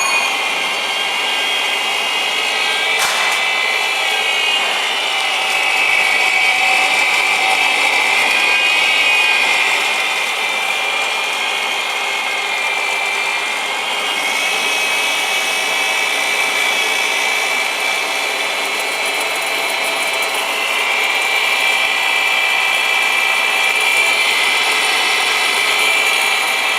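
Electric sesame butter grinder running steadily, a continuous high-pitched motor whine.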